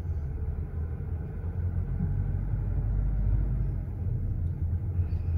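Car driving slowly in traffic: a steady low rumble of engine and road.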